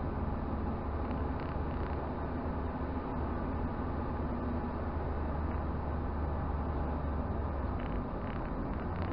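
Toyota Celica driving, heard inside the cabin: a steady low drone of engine and road noise that eases slightly near the end.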